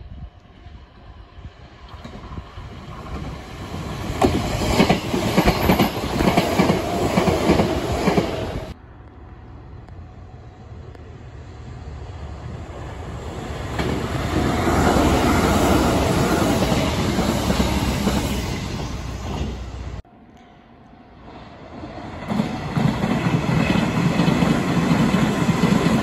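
Three electric commuter train passes, each cut off abruptly: a silver-and-red Sanyo train approaching and running past with its wheels clattering over the rail joints, a Sanyo 3050 series coming out of a tunnel and building to a loud run-by, then an orange Hanshin 9300 series passing.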